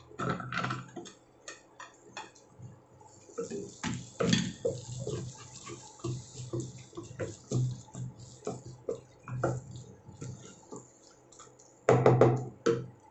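Onion pieces tipped into a pan of thick masala paste, then a wooden spatula stirring and scraping through them, knocking irregularly against the pan. The loudest knocks come at the start and again near the end.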